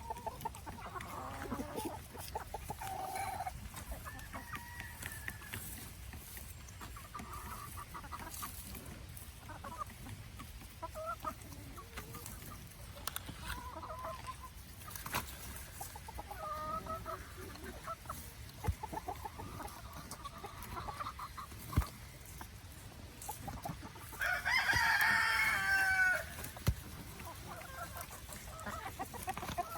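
Chickens clucking on and off, with a rooster crowing once, loudly, a little past two-thirds of the way through.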